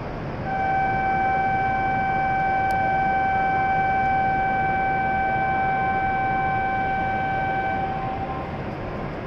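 Steady electronic signal tone on a Shinkansen platform, one unbroken pitch held for about seven and a half seconds, starting about half a second in and cutting off near the end, over the steady hum of the station and the waiting train. The tone is of the kind sounded on the platform before the train departs.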